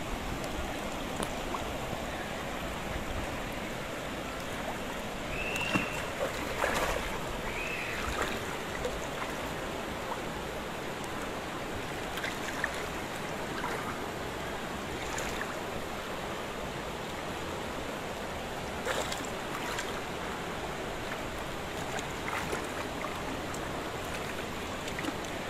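Steady hiss of falling rain on a car. Two short squeaks come about six and eight seconds in, with scattered taps, as a hand is wiped over the wet windshield glass.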